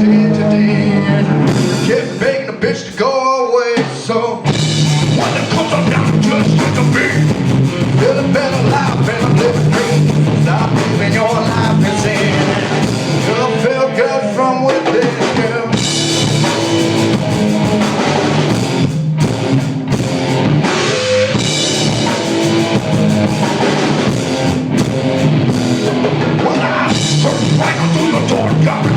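Rock band playing an instrumental passage with drum kit and guitars, with a brief drop-out of the full band about three seconds in.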